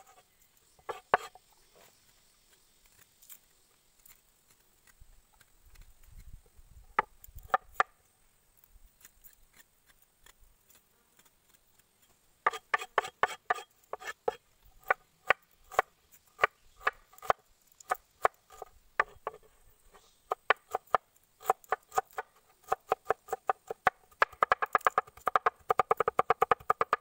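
Meat cleaver chopping fresh ginger on a wooden cutting board. A few separate strokes come first, then steady rhythmic chopping from about halfway, quickening into fast mincing near the end.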